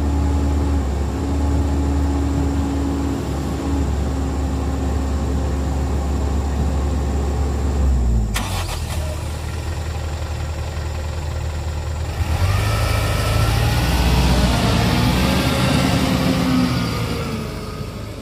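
Diesel engines of an excavator and a dump truck running steadily while stone is loaded, with a sharp knock about eight seconds in. From about twelve seconds an engine revs up, louder, its pitch rising and wavering.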